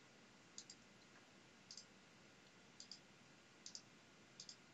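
Faint computer mouse clicks, five of them about a second apart, each a quick double tick of the button going down and coming up, as the cursor steps through a setup wizard.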